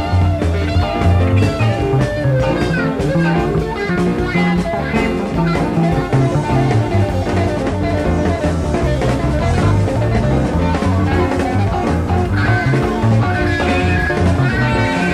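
A live rock band playing an instrumental jam without singing: electric guitar lines over bass and drums, heard through a soundboard recording.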